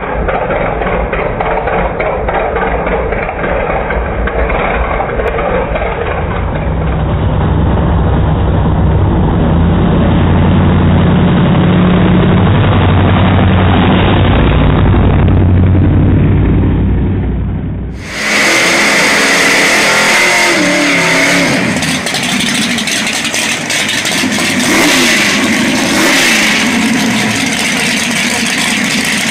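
Drag-race car's engine running loud and rough, then revving up and down. About two-thirds of the way through the sound cuts abruptly to a brighter, crisper recording of the engine.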